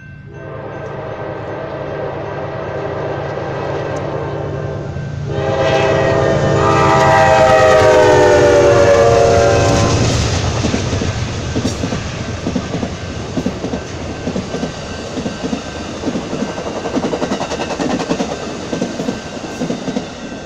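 GE Dash 8-32BWH diesel locomotive blowing its air horn for a grade crossing as it approaches over the rumble of its engine: one long blast, then after a short break a second, louder one that falls in pitch as the locomotive passes. The horn stops about halfway through, and the train's bilevel passenger cars roll by, their wheels clicking over the rail joints.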